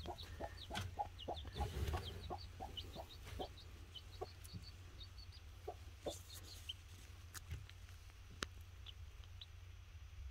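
Broody hen clucking softly, a quick run of low clucks for the first few seconds, then only now and then. Thin high peeps come from the chick hatching inside the pipped egg beneath her.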